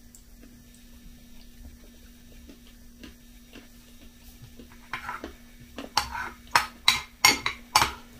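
Metal spoon clinking and scraping against a ceramic bowl while scooping up cereal. Mostly quiet at first, then a quick run of sharp clinks in the last three seconds.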